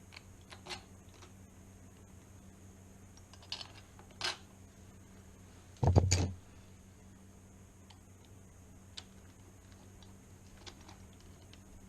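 Small clicks and taps of metal lock parts and screws being handled while a door knob lockset is fitted on the door, with one louder knock about six seconds in.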